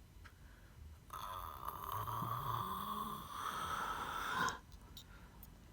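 A person snoring: one long snore of about three and a half seconds, starting about a second in and stopping abruptly.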